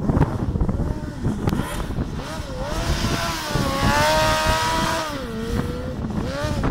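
Off-road racing buggy's engine revving hard through a dirt corner, its pitch rising and falling with the throttle; it is loudest and highest about four seconds in, then drops away.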